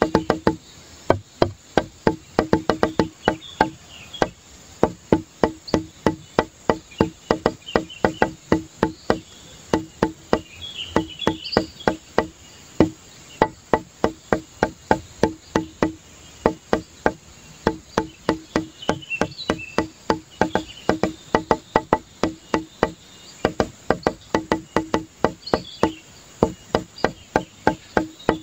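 A rapid, uneven run of short knocks or clicks, several a second, many with a low pitched ring, with faint high chirps over them.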